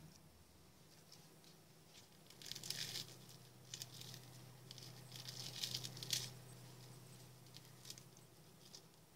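Fingers tearing open a fried zucchini patty, its crisp crust crackling faintly in two short bursts, with a few small crackles between them.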